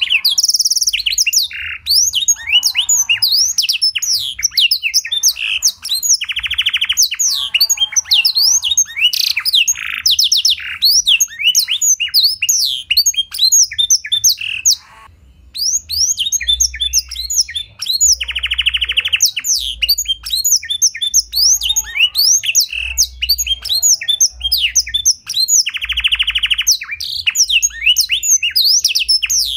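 Domestic canary singing a continuous, fast song of high chirps and sweeping notes, its song filled with phrases learned from the black-throated canary. Several long, fast rolling trills stand out, with a brief pause about halfway.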